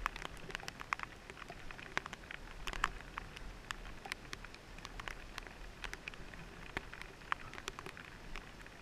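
Rain falling on the helmet and helmet-mounted camera: scattered, irregular sharp ticks of drops striking over a light hiss of rain.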